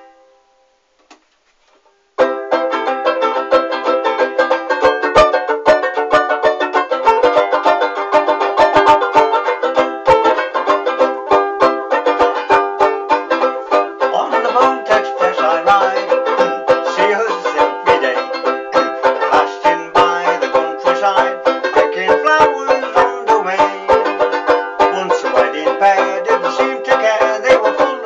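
Banjo ukulele (banjolele) strummed in a fast, steady rhythm, starting about two seconds in after a short quiet.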